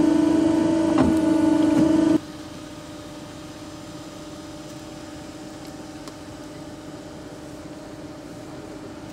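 Steady mechanical hum of construction machinery, an engine with a whine on it. It drops abruptly to a faint hum of the same pitch about two seconds in, with a faint knock just before.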